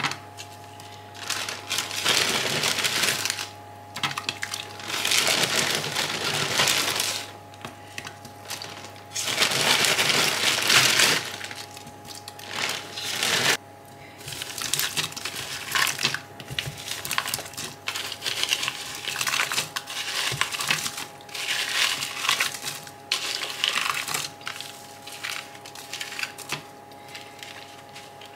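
Chopped raw vegetables being tipped and scraped into a soup pot, a run of irregular rustling, clattering bursts, the longest about ten seconds in.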